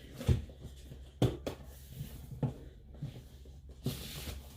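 Handling of new roller skates and their packaging: a few scattered knocks and clicks, then a short rustle near the end.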